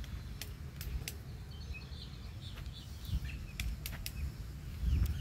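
A woodpecker pecking at a tree trunk: scattered sharp taps, a few in the first second and a quick cluster about three and a half to four seconds in. Wind rumbles on the microphone, with faint bird chirps in between.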